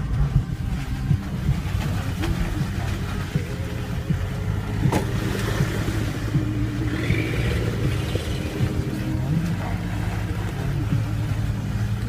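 Vehicle engine running steadily with tyre noise on a rough dirt road, heard from inside the cabin, with scattered knocks and rattles as the vehicle jolts along.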